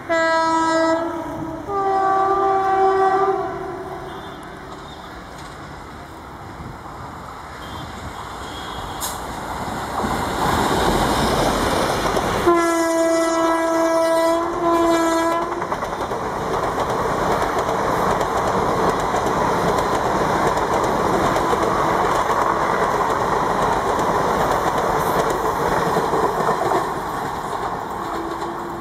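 WCAM-3 electric locomotive's two-tone horn: a short low blast, then a higher one, at the start. The train's rumble rises as it approaches, the horn sounds again in a longer low blast about halfway through, and the train passes with a steady loud rumble of wheels on the rails, with a brief horn note near the end.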